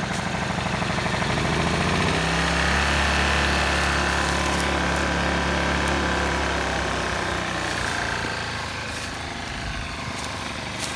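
Small portable inverter generator's engine running just after starting, picking up speed about two seconds in and easing back down near the end; a pretty quiet inverter.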